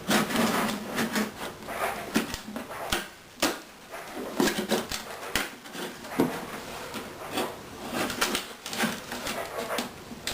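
Wood creaking, cracking and scraping in irregular bursts as the plywood back of a Gibson L-48 archtop guitar is pried loose from the rims with a blade.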